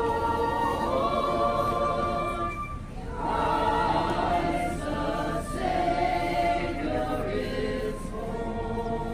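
A choir singing slow phrases of long held notes, with short breaks between phrases.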